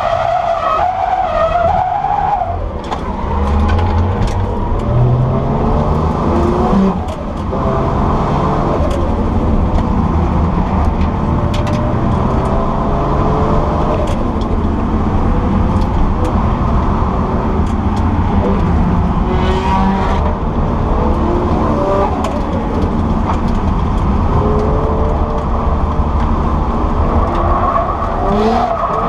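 Nissan Skyline R34 heard from inside the cabin while drifting. The engine revs rise and fall over and over with the throttle, over a steady rush of skidding tyres.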